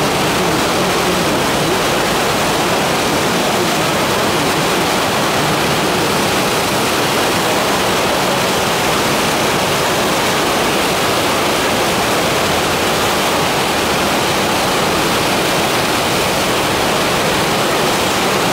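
Fast river water churning through a standing wave of whitewater, a loud steady rushing that does not change.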